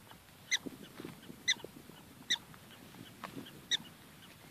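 Black-tailed prairie dog giving four short, sharp, high-pitched barks at uneven intervals of about a second.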